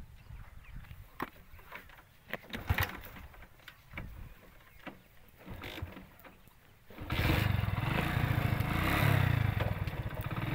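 Scattered knocks and scrapes of a phone being handled, then about seven seconds in a motorcycle engine starts and runs, its pitch rising and falling.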